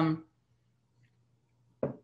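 A woman's speech trailing off, then near silence, with a short sound just before the end.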